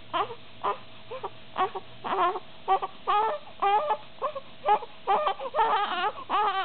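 A baby crying in short, rapid bursts, about two cries a second.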